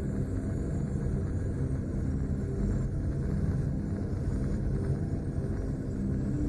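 Cinematic suspense drone: a steady low rumble with long, held low tones.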